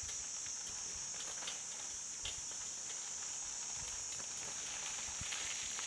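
A steady high-pitched insect drone, typical of cicadas, with scattered faint clicks and soft thuds of footsteps on a dirt road.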